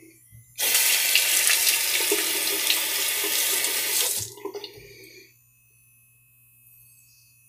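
Sink tap running full for about three and a half seconds, then turned off, the water trailing away over the next second.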